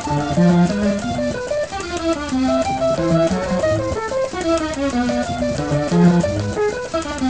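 Two 3.5-inch floppy disk drives playing sampled music together: a melody of short stepped notes over a lower bass line.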